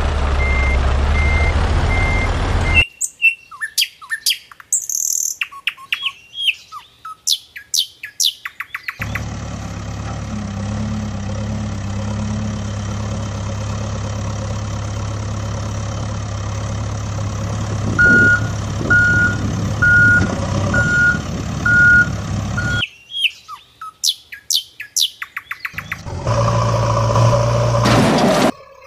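Sound effects that alternate between a heavy vehicle engine and birds. A truck engine runs with a reversing alarm beeping, then birds chirp for several seconds, then the engine runs steadily with a reversing beeper sounding about once a second. Near the end the birds chirp again and the engine comes back in.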